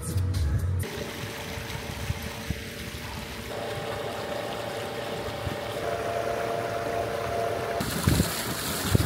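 Small inflatable skiff under way: a steady motor hum over rushing water, with the rush growing louder near the end.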